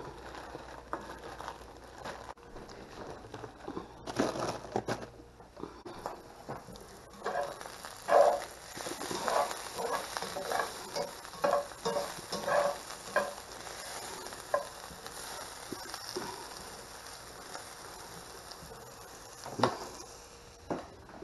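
Chicken pieces frying and sizzling in a cast iron skillet, with a utensil scraping and knocking against the pan as they are stirred. The stirring knocks come thickest in the middle, and a single sharper knock comes near the end.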